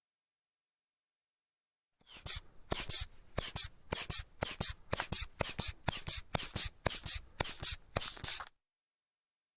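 Rubber inflator bulb of a manual sphygmomanometer being squeezed over and over to pump up the cuff. Each squeeze gives a short puff of air, about three a second for some six seconds, then it stops suddenly.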